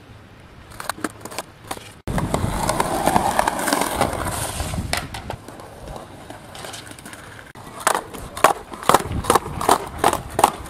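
Skateboard wheels rolling fast on pavement: a loud rumbling roll after about two seconds, then a run of sharp clacks in the last three seconds.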